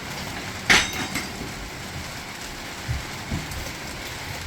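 Demolition work on a houseboat interior: one sharp metallic clang under a second in, then a few lighter knocks, over a steady background hiss.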